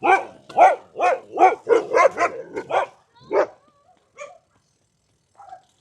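A dog barking in a quick run of about nine barks over the first three seconds or so, then one faint bark before it stops.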